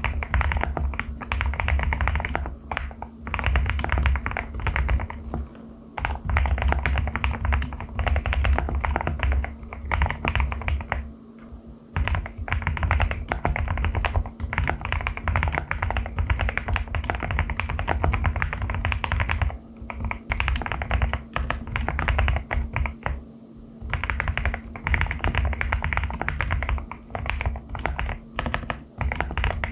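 Fast, continuous typing on a Qwertykeys QK75 custom mechanical keyboard with Haimu Crystal Blossom switches: a dense run of key strokes and clacks, with a few short pauses.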